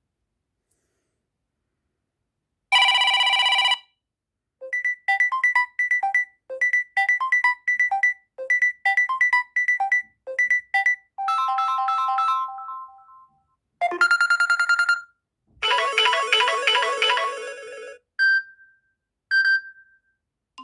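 Samsung Galaxy A71 ringtones played one after another: a series of short electronic melodies and tones, each lasting a second to a few seconds, with short gaps between them. The first starts nearly three seconds in.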